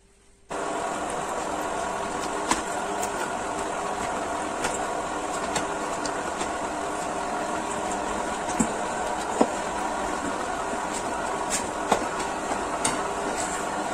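Electric meat grinder switched on about half a second in and running steadily as it minces softened dates into a paste, its motor humming with scattered sharp clicks.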